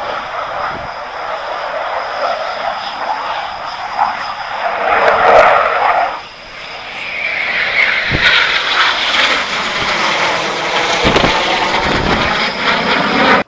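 Aircraft engine noise from arriving aircraft passing by. It swells to a peak about five seconds in, drops away suddenly about a second later, then builds again with a slowly falling pitch.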